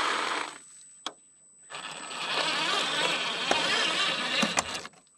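Small electric drive motor and gearbox of an RC 6x6 KrAZ-260 dump truck running, with a few clicks. It stops about half a second in, and starts again just under two seconds in.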